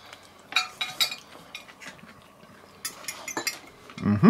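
Cutlery clinking and scraping against a plate as food is scooped up, in two small clusters of quick clicks. Near the end comes a short, louder voice sound.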